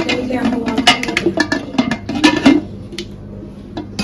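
Aluminium pressure cooker lid clinking and scraping against the pot as it is fitted inside the rim and turned to lock: a quick run of metal clinks for about two and a half seconds, then a single click near the end.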